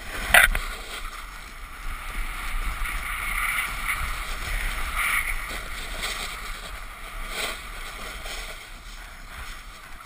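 Snowboard sliding and scraping over packed snow, a steady rushing hiss that swells in the middle of the run, with a sharp knock just after the start and a lighter one near the end.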